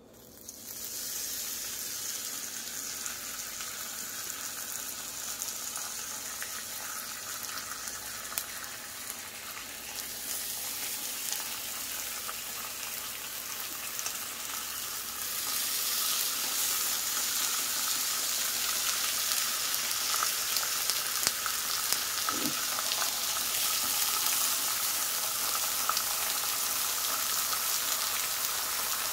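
Raw bacon strips sizzling on a hot Blackstone griddle turned up high. The sizzle starts as the first strip goes down and gets louder in steps, about ten and fifteen seconds in, as more strips are laid on.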